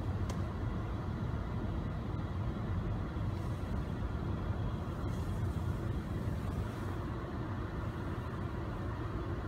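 Steady running noise inside the cabin of a 2012 Hyundai Santa Fe: a low, even rumble with an air hiss over it, from the idling engine and the HVAC blower fan, whose motor bearings have just been cleaned and lubricated.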